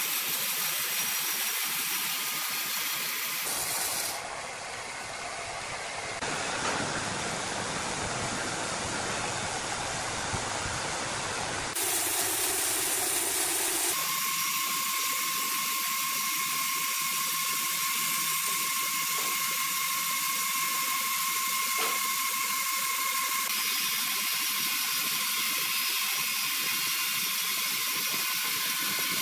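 Horizontal band sawmill running its blade through a large green ironwood log: a steady rasping hiss of the saw in the wood over the machine's running. It changes abruptly about 4, 12 and 14 seconds in, and a thin steady whine sounds through the middle stretch.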